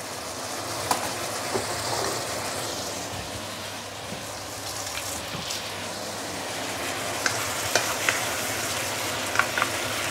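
Charred chicken pieces frying in a wok with freshly added sauces, a steady sizzling hiss. Short sharp clinks of a utensil against the wok come now and then, more often in the second half.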